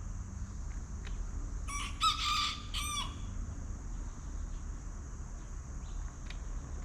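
A rooster crowing once, a pitched call of a little over a second starting about two seconds in, over a steady high-pitched hiss.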